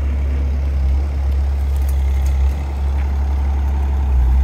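The engine of a 2.5-tonne SD25B mini excavator running steadily, a low, even drone.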